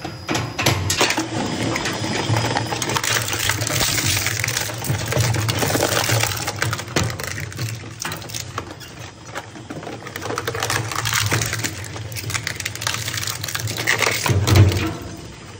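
Twin-shaft plastic shredder running, its interlocking cutter discs crunching and cracking hard plastic scrap in a dense stream of snaps and clatters over a steady low motor hum, with a loud crunch near the end.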